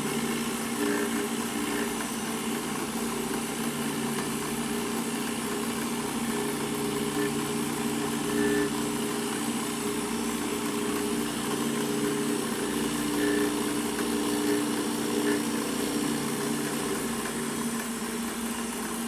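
Milling machine running steadily with its spindle at about 1800 RPM, a hum of several steady tones, while the end mill is traversed back through the freshly cut slot.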